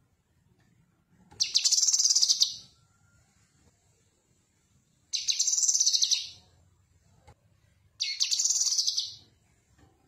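Cucak kinoi leafbird singing: three phrases of rapid, high twittering notes, each about a second long, spaced a few seconds apart.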